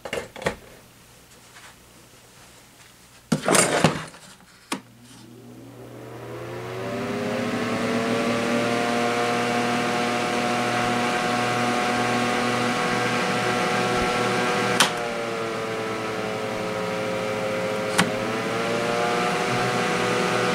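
Holmes HAWF2021 twin window fan switched on with a click, its fans spinning up with a rising whir and then running steadily, now fixed so that it runs smoothly. Two clicks on the control panel later each take the speed down a little.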